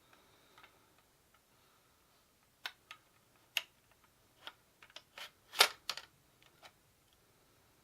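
Irregular plastic clicks and clacks from a small LED light's mount and locking knob being turned and worked by hand, about a dozen in all starting a couple of seconds in, the loudest a little past halfway.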